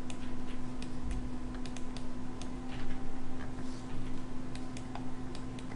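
Irregular light clicks of a computer mouse and keyboard as the modelling software is operated, over a steady low hum.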